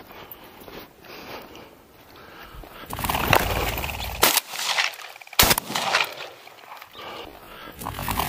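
Heavy breathing at first. Then, about three seconds in, loud rustling and two sharp shotgun reports about a second and a half apart.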